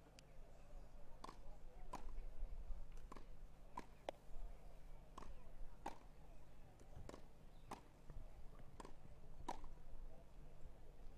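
Tennis balls being struck back and forth by racquets in a rally, a sharp pop about every second.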